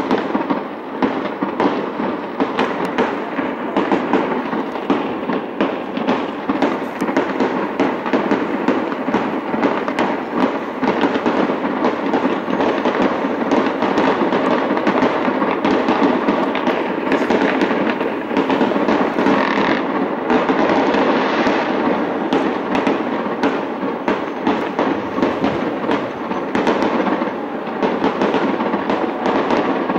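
Fireworks display: a rapid, unbroken barrage of bangs from bursting shells, many per second at a fairly even loudness.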